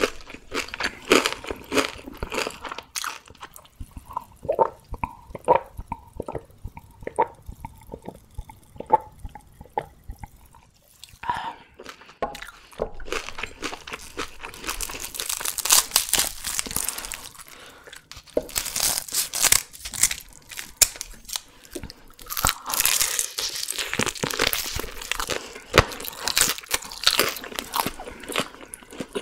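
Crunching and chewing of crispy deep-fried whole chicken, close to the microphone. About halfway through, a denser crackling as the fried crust is torn apart by hand.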